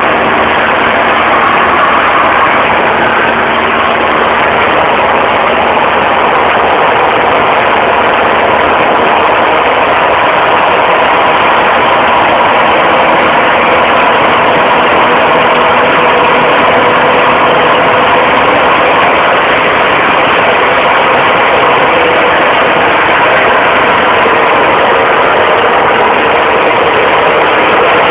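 Cessna 172 light aircraft's piston engine and propeller running with a loud, steady drone, its pitch creeping up slightly over the half minute, during a barrel roll.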